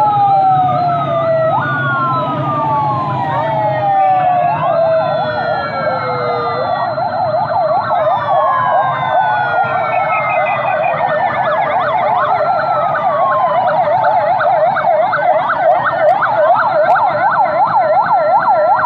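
Several police sirens sounding together, slow falling wails overlapping one another, with a fast yelp that takes over from about five seconds in. A low engine rumble fades out after the first few seconds.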